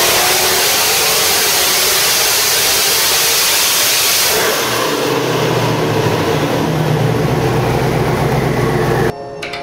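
Nelson Racing Engines twin-turbo 427 cubic-inch LS V8 running hard at high revs. About halfway through it drops to a lower, steadier running note, and the sound cuts off suddenly near the end.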